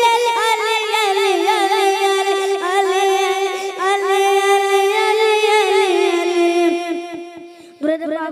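A boy's amplified voice singing a devotional song into a microphone, holding long, high notes with quick wavering ornaments. The line fades away in the last couple of seconds, and a new held note begins just before the end.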